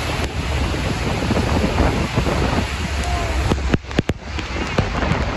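Wind buffeting the microphone over the steady rush of Horseshoe Falls' falling water and spray. The sound cuts out briefly a few times about four seconds in.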